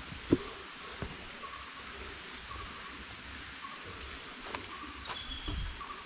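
Tropical forest insects buzzing steadily at a high pitch, with short chirping calls repeating about once a second over an even background hiss. A single sharp knock sounds about a third of a second in.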